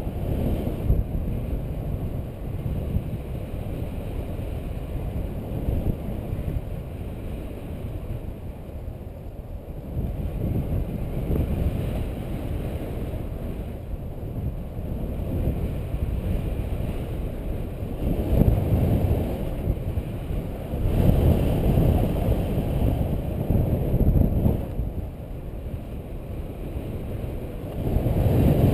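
Airflow buffeting the microphone of a camera on a paraglider in flight: a low rumbling rush that swells several times in the last third.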